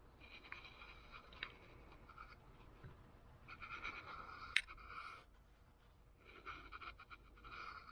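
Faint scraping and rubbing handling sounds in three short spells, with a few light clicks; the sharpest click comes about four and a half seconds in.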